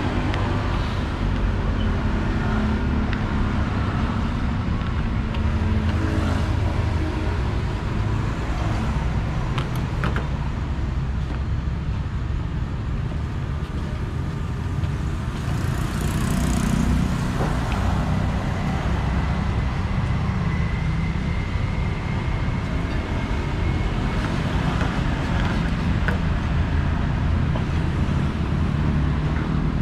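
Steady road traffic noise, the continuous low rumble of passing vehicles, with a few light clicks about a third of the way in.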